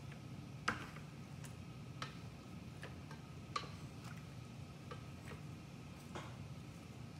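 Wooden chopsticks clicking against a stainless steel bowl while stirring raw pork ribs in their marinade: light, irregular clicks a little under one a second, the sharpest about a second in.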